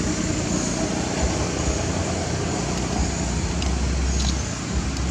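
Steady outdoor background noise with a low rumble underneath and faint, thin high tones that come and go.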